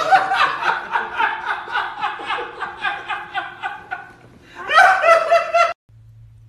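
A person laughing hard in rapid, evenly repeated bursts for about four seconds. A second loud burst of laughter follows and cuts off abruptly near the end, leaving a faint low hum.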